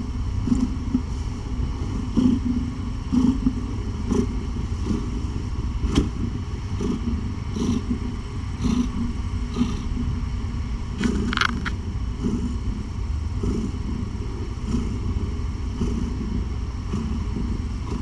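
Domestic cat purring close to the microphone: a steady low rumble that swells and fades about once a second with its breathing, with a few faint clicks.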